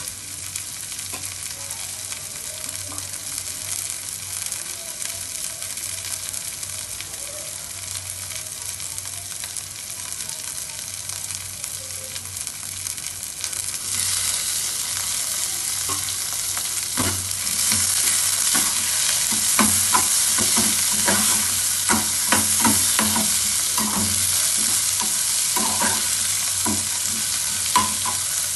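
Chopped vegetables sizzling in oil in a metal pan. About halfway through, tomatoes tipped into the pan make the sizzle louder. A few seconds later a metal spatula starts stirring, with repeated scrapes and clinks against the pan.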